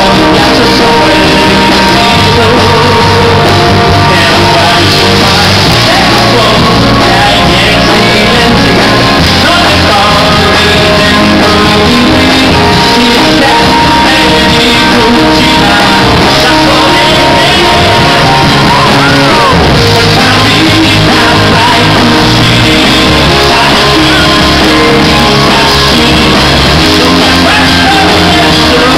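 A live band playing loud, with a male lead singer belting the vocal into a microphone.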